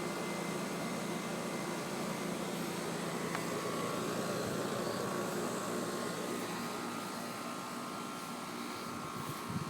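Newly installed Trane XB13 4-ton heat pump outdoor unit running steadily, its compressor and condenser fan making a very quiet, even hum. A faint steady whine joins in a few seconds in. The system was started only minutes earlier and is still settling before its refrigerant charge is adjusted.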